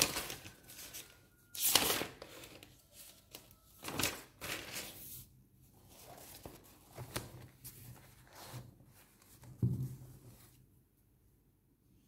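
Paper pages being flipped one after another, a series of quick rustles and flaps about every one to two seconds, fading out near the end.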